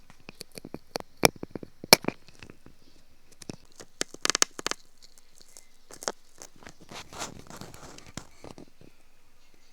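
Irregular sharp clicks and short scraping strokes of hand tools working bamboo while carving an ear pick, with a longer stretch of rough scraping about seven seconds in.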